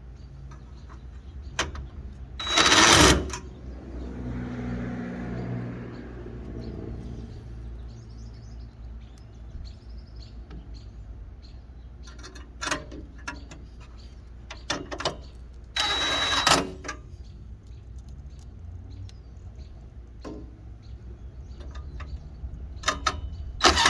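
Clicks and clatter of headlight trim and fittings being worked back into place, broken by three short, loud, rattling bursts. A passing vehicle hums by about 4 to 7 seconds in.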